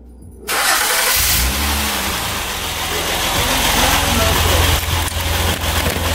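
2008 Honda Accord engine starting about half a second in and settling into a steady idle. This is the first start after a fresh oil and filter change.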